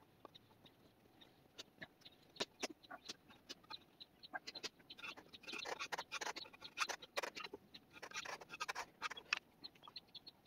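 Light, irregular scratching and clicking as fingers and a thin metal tool rub a sawdust-and-glue filler into the corner joint of a wooden tray, with the scraping densest in the middle stretch.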